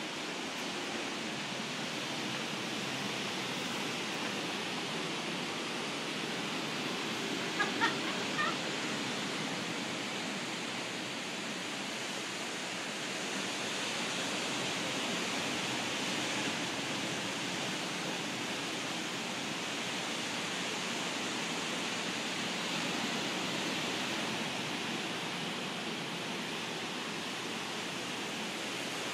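Steady wash of ocean surf breaking on the beach below, heard from high up as an even rushing noise. A brief distant call is heard about eight seconds in.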